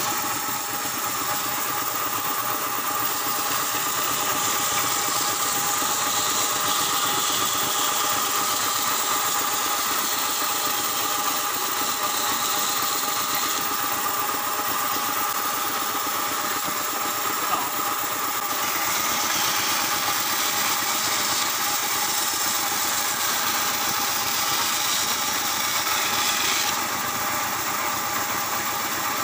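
Band saw running steadily, its blade cutting through thick wooden blanks as curved chair legs are sawn out. A constant motor hum sits under a higher sawing hiss that grows and fades in long stretches as the wood is fed through.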